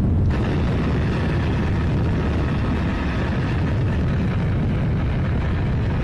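Small boat's motor running steadily under way, with wind rushing over the microphone; the hiss brightens about a third of a second in.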